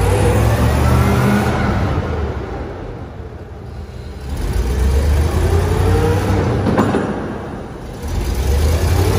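Engine of a Royal T-500B propane forklift running under way, its revs rising and falling three times as the operator works the throttle. A single sharp clank about seven seconds in.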